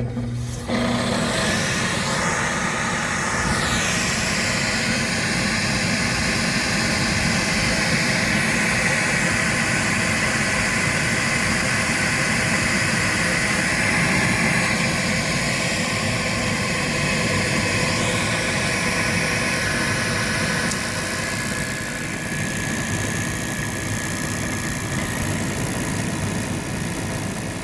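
Gas package unit's combustion-air inducer fan starting up about a second in and then running steadily. This is the unit beginning its ignition sequence on a heat call.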